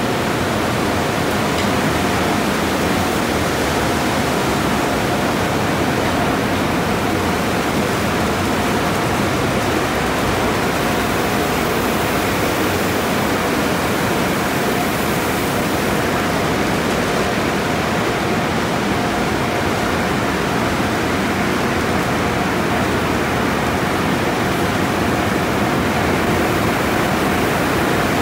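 Water spraying from the arches of an automatic conveyor car wash tunnel onto a car, a loud steady rushing hiss with a faint steady tone from the equipment under it.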